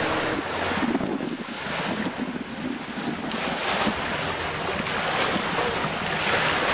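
Wind buffeting the microphone over the splash and wash of water, a loud, gusting rush without any clear tone.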